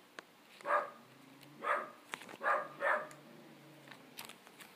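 A dog barking: four short barks, the last two close together.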